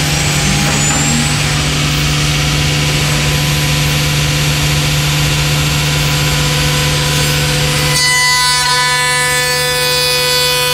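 Thermwood Model 53 CNC router machining a volute: a steady hum from the running machine under a loud hiss of cutting. About eight seconds in the hiss drops and a steady whine of several pitches takes over.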